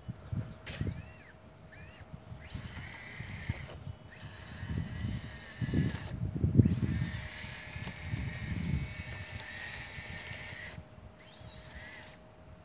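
Kabolite radio-controlled hydraulic excavator's pump whining in several short spells, its pitch rising and falling as the boom and arm are raised, with brief pauses between moves.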